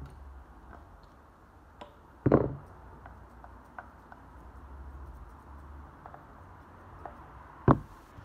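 Small, sharp snips of grooming scissors trimming the ear tassels on a model dog head's wig. Two much louder knocks, about two seconds in and near the end.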